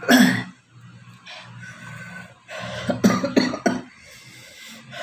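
A man coughing: one loud cough at the start, then a burst of several coughs about three seconds in, brought on by the spicy chili sambal he is eating with raw mango.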